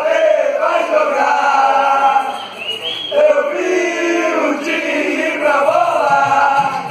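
A group of male voices chanting together in a continuous sung line.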